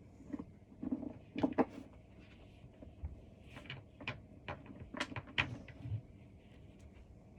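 Scattered knocks and clicks of cat tree parts being handled and fitted together, with a cluster of sharp clacks about a second and a half in and another around five seconds in.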